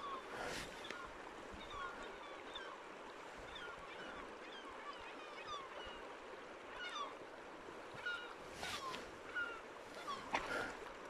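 Birds chirping, many short quick calls scattered over the steady rush of a braided river, with a few brief rustles near the end.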